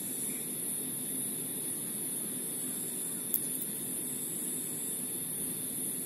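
Steady high-pitched hiss at an even level, with one short click about three and a half seconds in.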